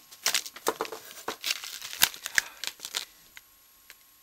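Snack packaging crinkling as it is handled, in quick crackles for about three seconds, then a few faint ticks.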